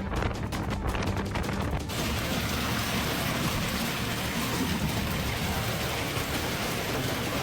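Background music with a steady beat, cut off about two seconds in by a dense, steady hiss of storm precipitation pelting down on a surface.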